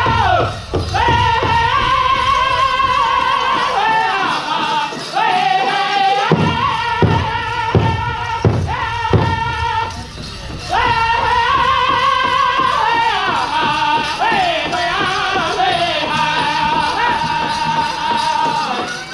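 Powwow drum group singing a chicken dance contest song: a chorus of high-pitched men's voices over a steady big-drum beat. About four seconds in, the drum drops out for about two seconds, then comes back with five single, evenly spaced hard beats before the steady beat resumes.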